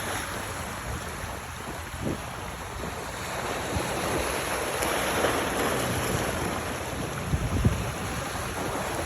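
Wind buffeting the microphone over a steady rush of water, with low gusts about two seconds in and again near the end.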